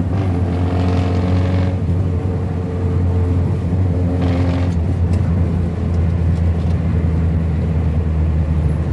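1971 Ford Corcel's four-cylinder engine running as the car drives, a steady low drone under road noise. A brief swell of broader noise comes in the first two seconds and again about four seconds in.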